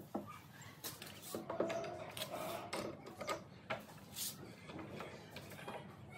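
Scattered light wooden knocks and clicks with a short scrape, from a metal pipe clamp being handled and set against a pine tabletop.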